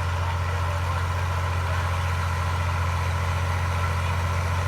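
Freshly overhauled tractor engine running steadily at constant speed during its break-in, a low even drone with no revving.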